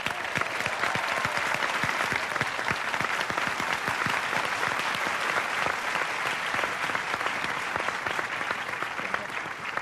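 Studio audience applauding: dense, steady clapping that eases off slightly near the end.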